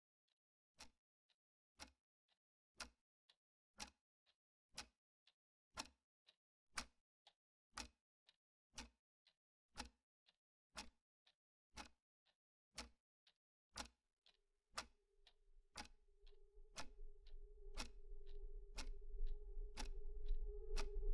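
Faint clock ticking about once a second. From about two-thirds of the way through, a steady low drone and rumble swell in underneath, growing louder.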